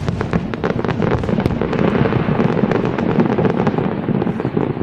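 Fireworks going off: a dense, continuous barrage of crackling pops and bangs over a low rumble.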